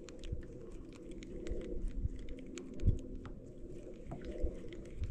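Fishing reel being wound in to work a lure, with many light, irregular clicks over a faint low hum.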